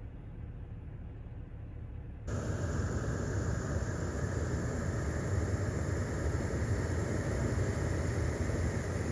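Steady vehicle rumble and road noise with no speech. About two seconds in it abruptly jumps louder and fuller, and then runs on steadily.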